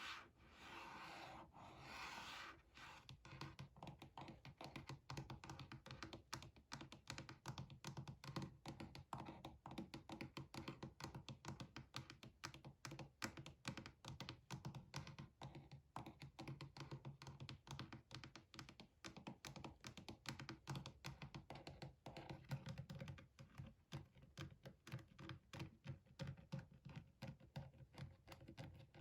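Typing on a gaming keyboard: a dense, irregular run of keystrokes, with a short rubbing sound or two in the first couple of seconds.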